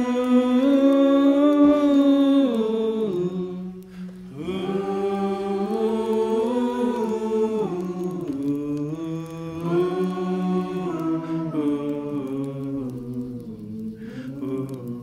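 Singing of a slow hymn, with long held notes stepping from one pitch to the next in two phrases and a breath break about four seconds in, growing softer toward the end.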